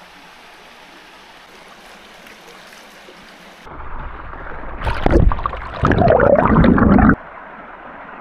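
Steady rushing of waterfall water. About four seconds in it turns much louder, with a deep rumble, then drops back shortly before the end.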